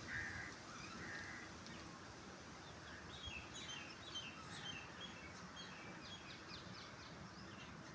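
Small birds chirping faintly over low outdoor background noise, with a busy run of short, quick high chirps from about three seconds in.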